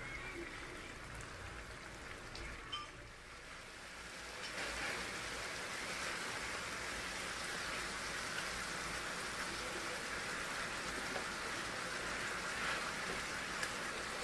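Red chili balado sauce with chicken pieces bubbling and sputtering steadily in a frying pan as it simmers down to reduce its water, becoming louder and fuller about four and a half seconds in.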